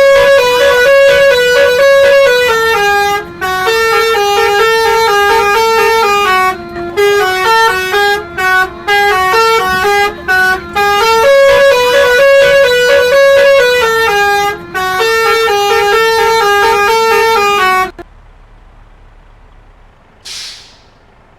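Basuri-type 'telolet' multi-tone bus horn playing a loud melody of stepped notes, with a few short breaks, until it cuts off about 18 seconds in. A brief hiss follows near the end.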